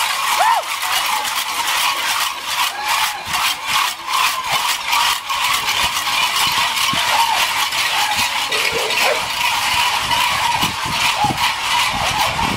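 Cowbells tied at the waists of running carnival devils clanking and jangling in a dense, uneven clatter, with a few short ringing tones.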